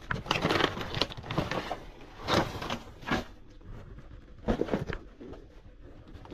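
Plastic bags and cardboard rustling and crinkling as trash is pushed aside and lifted by hand, in several irregular bursts with short pauses between.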